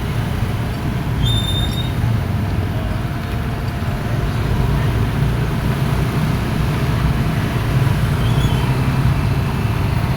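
Komatsu excavator's diesel engine running steadily, with brief high squeaks about a second in and again near the end.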